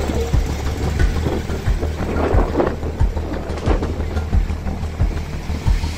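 Background music with a steady, deep beat, mixed with a rough, rushing noise.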